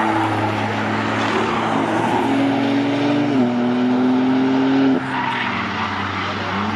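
Toyota GR Yaris's turbocharged three-cylinder engine accelerating hard away up the track. Its pitch rises, drops at an upshift about three and a half seconds in, climbs again, and cuts off suddenly about five seconds in as the throttle is lifted.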